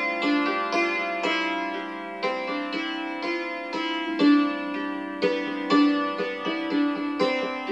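Dusty Strings hammered dulcimer played with hammers: a slow tune of struck notes, about two a second, that ring on into each other. The instrument has had a single retuning after years unplayed.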